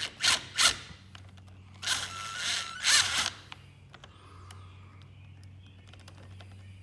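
Hand ratchet turning an Allen socket on a long extension, loosening a bolt on the timing chain tensioner of an Arctic Cat 300 ATV engine. There are a few sharp metal clicks near the start, then about a second and a half of rapid ratchet clicking, then light scattered ticks of tool on metal.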